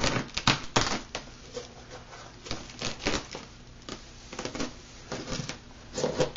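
A knife slitting the packing tape on a cardboard box, with the flaps being pulled open: a run of short, irregular scraping rips and cardboard rustles.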